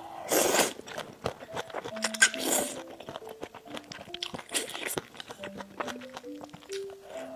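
Close-miked eating sounds: bites and chewing with many small clicks and a few short noisy bursts, over soft background music playing a simple melody.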